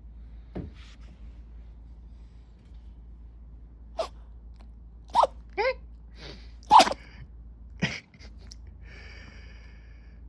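A small Chihuahua–dachshund mix dog sneezing several times in quick succession. About five short, sharp sneezes come from about four seconds in, the loudest roughly two-thirds of the way through.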